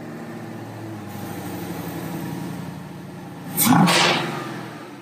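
2017 Mustang GT's 5.0 Coyote V8 running at idle on its freshly flashed Power Pack 2 tune. About three and a half seconds in, a quick throttle blip swells and falls back. It is heard close to the open cone air filter, with intake rush on the rev.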